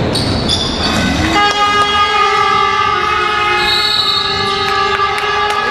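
Basketball game horn sounding one long, steady electric blast that starts about a second and a half in and holds for about four seconds, over the noise of the gym crowd.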